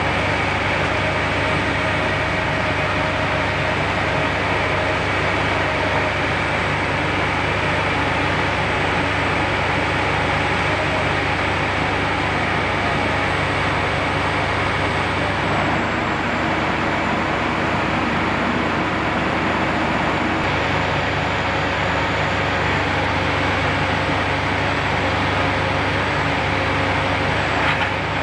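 A large vehicle engine running steadily at one speed, a constant hum with no revving or breaks, most likely the flatbed tow truck's engine idling while its bed is tilted for winching.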